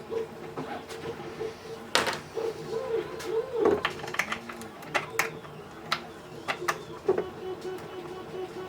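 Scattered sharp clicks and knocks of small parts and tools being handled while a pinball playfield is taken apart, over quiet background music with a held, wavering melody.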